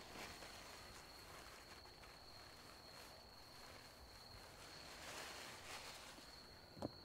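Faint night ambience: a steady, high, unbroken insect trill. A soft rustle comes about five seconds in, and a single sharp click near the end.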